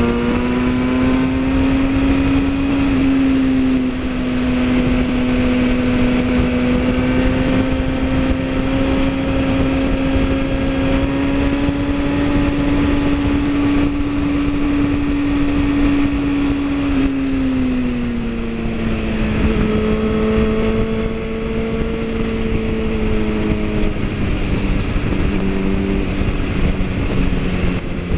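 Motorcycle engine running steadily at cruising speed, heard from on the bike with wind noise. About two-thirds of the way through its pitch glides down as the bike eases off, and it drops lower again near the end.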